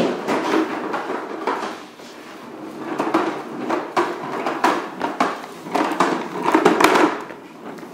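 Plastic wheels of a toddler's ride-on toy car rolling and rattling across a hardwood floor as it is pushed, with many small clicks and knocks; it eases off about two seconds in and is loudest near the end.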